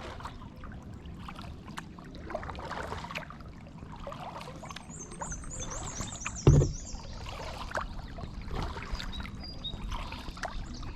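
Kayak paddling on a river: the paddle blades dip and splash with water dripping, and a single loud thump comes about six and a half seconds in.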